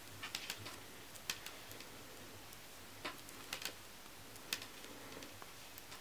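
Metal knitting needles clicking lightly against each other while stitches are knitted and bound off: a scattering of faint, irregular ticks, several close together about half a second in and again around three and a half seconds in.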